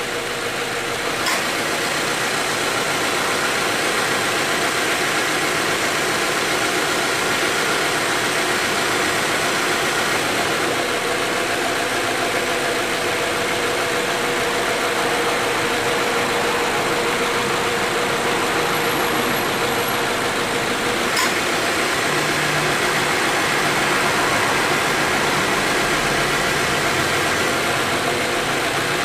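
2018 Subaru XV 2.0's flat-four engine idling steadily with the air conditioning running, its compressor cycling with no abnormal noise now that its light wear has been repaired. Two brief clicks stand out, about a second in and again some twenty seconds later.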